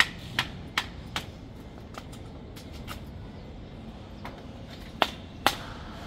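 Sharp knocks of hand work on a construction site: four in quick succession about 0.4 s apart, then three more spaced out over the last two seconds. The last two are the loudest and ring briefly.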